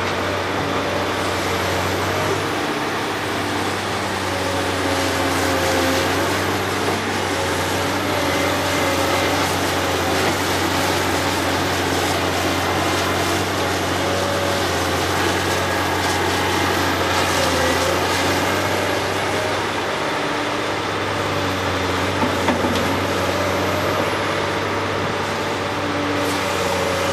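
Caterpillar 385C excavator's diesel engine running steadily under load through a swing, dig and dump cycle. A faint high whine rises and falls several times as the machine swings and works its boom, with a few small knocks near the end.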